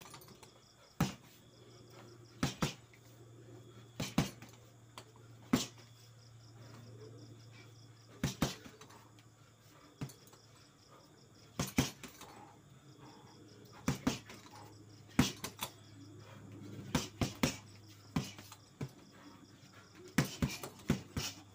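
Punches landing on a heavy punching bag: sharp slaps singly, in quick pairs and in short flurries every one to three seconds. A low steady hum runs underneath.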